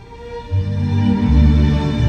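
Ambient background music fading in: held notes at first, then deep bass notes coming in about half a second in.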